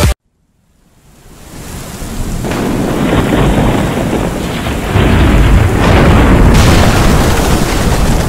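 Thunderstorm sound effect: rumbling thunder over steady rain, swelling up out of silence about half a second in and growing louder, with a heavier rumble setting in about five seconds in.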